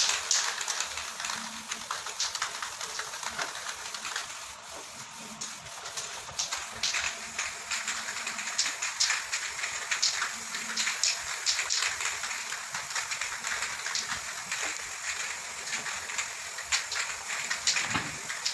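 Aerosol spray paint can hissing in many short, repeated bursts as paint is sprayed onto a ceiling.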